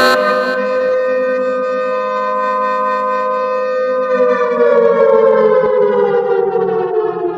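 A loud, sustained siren-like tone with many overtones. It holds one pitch, then slides slowly down from about halfway through and starts to fade near the end.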